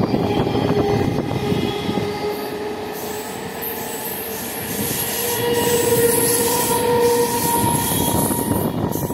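Electric multiple-unit local train running past close by: a steady rumble of wheels on the rails with a whining tone that rises slightly in pitch near the middle.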